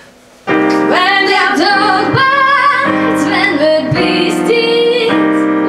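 A young woman singing a jazz melody, accompanied by piano chords. It starts about half a second in, after a short quiet.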